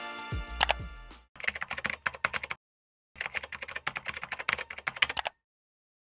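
Computer keyboard typing, rapid clicks in two runs: one about a second long, then a longer one of about two seconds. Background music fades out during the first second.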